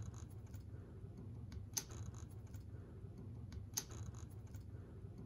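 Small clicks and ticks of fingers moving a jumper wire between the pins of a headlight wiring connector, with two sharper clicks about two and four seconds in, over a steady low hum.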